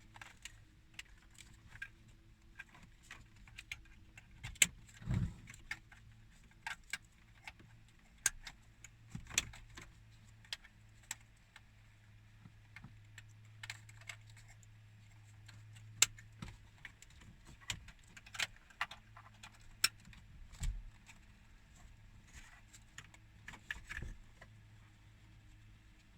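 Scattered small clicks and rattles of plastic wiring-harness connectors being handled and pushed into their sockets behind a car dashboard, irregular and a few a second at most, over a faint steady low hum.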